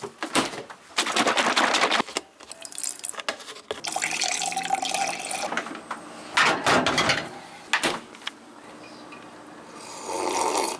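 Water running and pouring in several short bursts while a cup of coffee is made.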